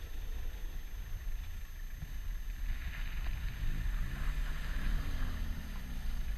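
Off-road 4x4's engine revving as it climbs a gravel mound, its note rising and falling in the second half, over a steady rumble of wind on the microphone.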